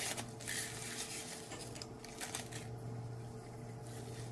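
A paper instant-oatmeal packet being torn open and rustled as the dry oats are shaken out into a bowl, over a low steady hum.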